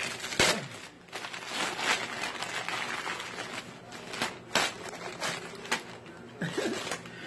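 Christmas wrapping paper being torn open and crumpled by hand: irregular rips and crinkling rustles.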